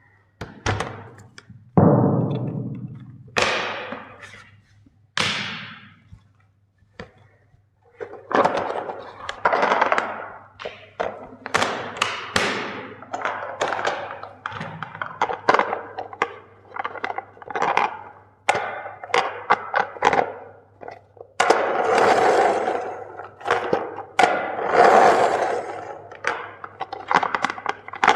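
Hammer blows on toys: repeated thunks with cracking and breaking, some in quick runs and some with short pauses between them.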